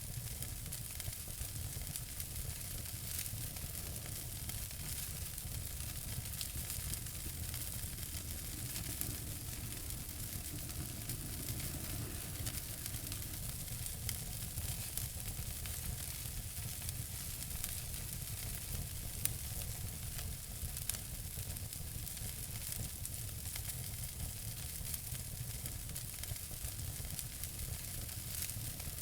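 Wood fire in a fireplace crackling, a steady hiss with frequent small crackles and an occasional louder pop.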